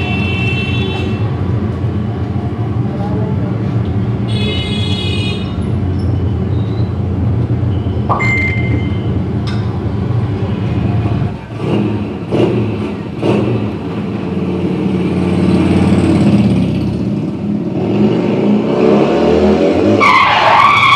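Recorded mime-act soundtrack played over loudspeakers: a steady car-engine sound effect with brief high squeals, a few sharp knocks in the middle, and music rising near the end.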